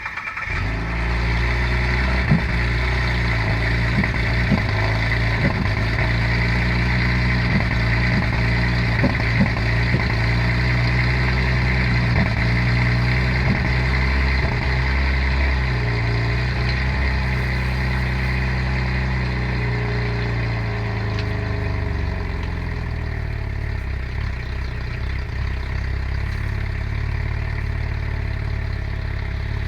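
Cadillac CTS's swapped-in LFX 3.6-litre V6 starting from cold and idling loud through a cat- and resonator-deleted exhaust. Irregular stumbles and pops break up the idle over the first ten seconds or so: the cold-start misfire the owner has not been able to trace. The idle then evens out and settles lower about twenty seconds in.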